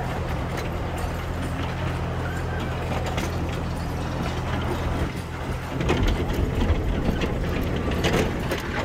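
Ride-on miniature railway train running along its track: a steady low drone with rattling and clicking from the open carriages and wheels, growing rougher and a little louder about six seconds in.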